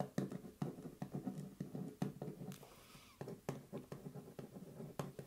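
Pen writing on paper, close up: an irregular run of soft, short scratching strokes.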